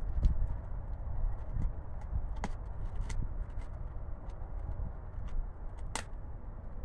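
A dog gnawing a raw bone: scattered sharp clicks and crunches of teeth on bone, the loudest about six seconds in, over a steady low rumble.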